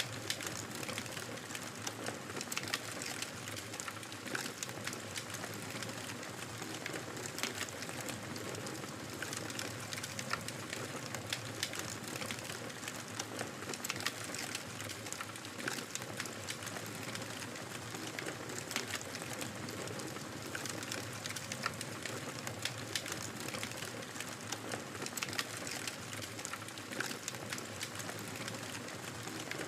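Fire crackling in a fireplace: a steady hiss with frequent small, sharp pops and snaps.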